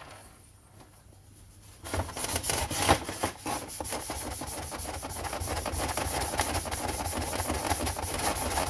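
Rapid back-and-forth hand rubbing with a polishing cloth on an oxidized plastic chainsaw top cover, starting about two seconds in and going on steadily.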